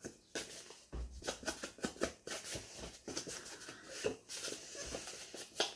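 A makeup sponge dabbing ink onto paper: soft, irregular taps and light rustling of paper being handled.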